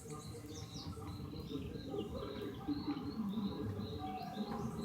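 Faint bird chirps, short and scattered, over low outdoor background noise.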